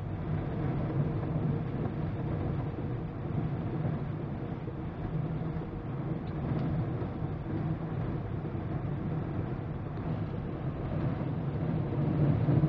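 Inside a GMC Yukon's cabin while it drives through water over the road: a steady low rumble of engine and tyres with water spraying against the body and windshield, a little louder near the end.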